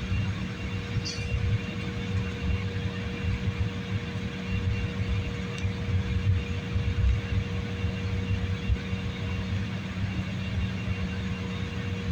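Airliner cabin noise in flight: a steady low rumble of the jet engines and airflow, with a constant hum.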